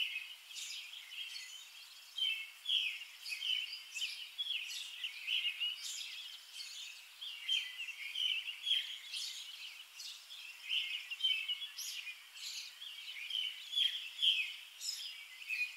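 A dense chorus of small birds, many short chirps overlapping throughout.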